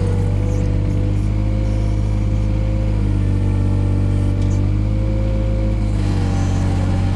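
Takeuchi TB016 mini excavator's diesel engine running steadily under load, with a higher tone above it that shifts in pitch about three and six seconds in.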